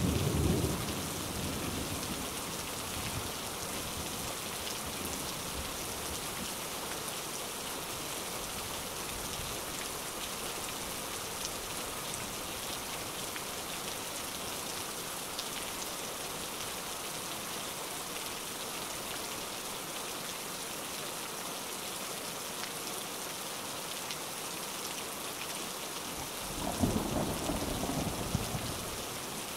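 Recorded rain-and-thunder ambience: steady rain throughout, with a roll of thunder right at the start and another about three seconds before the end.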